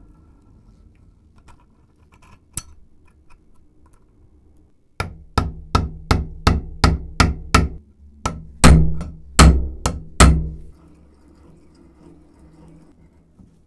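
Hammer tapping a brass pin into a bench vise's spindle: about a dozen sharp metal strikes at roughly two to three a second, each with a short ring, the loudest near the end. A single sharp click comes a couple of seconds before the strikes.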